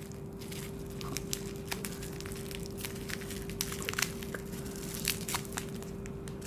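Parcel packaging being worked open by hand: scattered crinkling, crackling and small tearing clicks, over a steady low hum.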